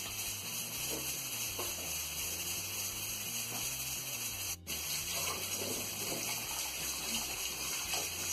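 Kitchen faucet running steadily into the sink as pieces of raw pig's feet are rinsed under it. The flow breaks off very briefly about halfway through.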